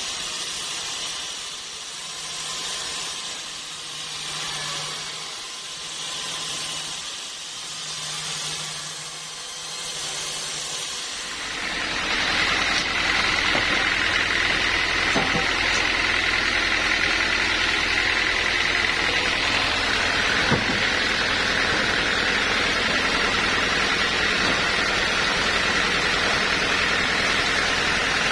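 Sawmill machinery: softer, wavering noise for about eleven seconds, then a machine runs louder and steadily with a high whine, and a single small knock partway through.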